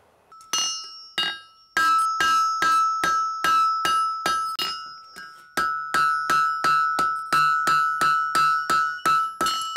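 Blacksmith's hand hammer striking a red-hot horseshoe on the horn of an anvil, shaping the shoe. Each blow rings with a clear metallic ring. Two blows come first, then a steady run of about two and a half blows a second.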